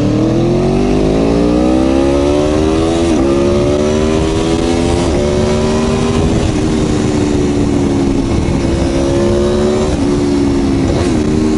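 Aprilia Tuono V4 1100 Factory's V4 engine through its Arrow exhaust, accelerating hard with the pitch climbing, then two quick upshifts about three and five seconds in before pulling on more steadily, with a couple of brief dips near the end. A constant low wind rush runs underneath.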